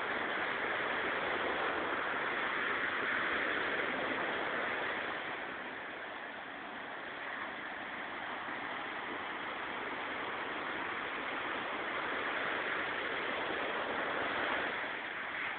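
Sea waves breaking and washing up the shore: a steady rush of surf that swells, eases about six seconds in, and builds again.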